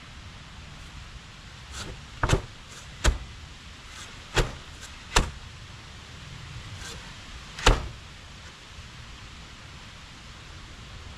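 Plywood cover panel knocking against the opening's frame as it is pushed and worked into place: five sharp wooden knocks at uneven intervals over about six seconds, with a few fainter taps between them.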